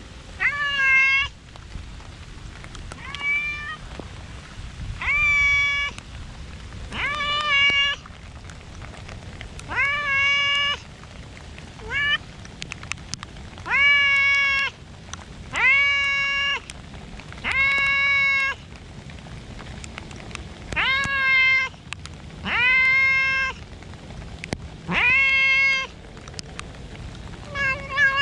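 A silver tabby-and-white cat meowing loudly and insistently, about a dozen calls of under a second each, one every two seconds or so.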